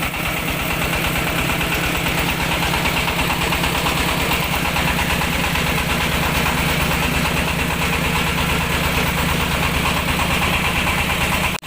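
Engine of a mobile rice-milling machine running steadily at a constant speed with an even pulsing beat.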